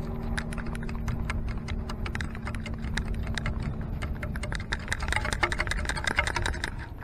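Stones clicking and rattling in a beach sand scoop as it is shaken to sift out the sand. The clicks come thick and fast throughout, busiest about five seconds in with a hiss of running sand.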